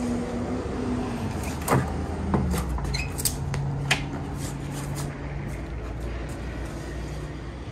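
A handful of sharp knocks and clunks as a dirt bike is shoved and shifted about inside a wooden shipping crate, over a steady low hum.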